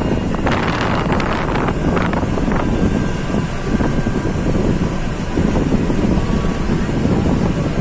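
Bus running along a hill road, heard from inside the cabin: a steady low engine and road rumble, with wind buffeting the microphone at the window.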